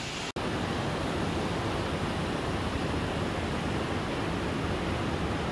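Steady rush of flowing canyon water, with a brief dropout about a third of a second in.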